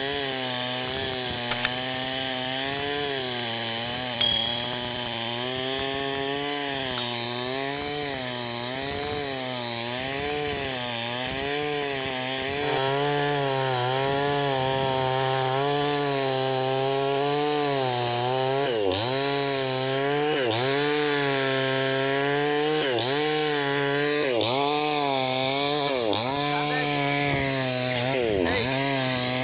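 Two-stroke chainsaw ripping lengthwise along an old tree trunk, its engine speed rising and falling every second or two as the chain bogs into the wood and recovers, with deeper dips in the second half. A short sharp click about four seconds in.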